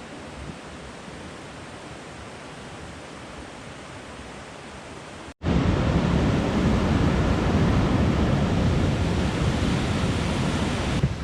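Steady rushing of river rapids below the trail. About five seconds in, after an abrupt cut, the rushing comes back much louder and deeper.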